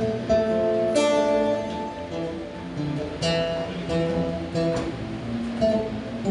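Acoustic guitar strummed and plucked through chords, an instrumental introduction before the singing, with a fresh chord attack about once a second.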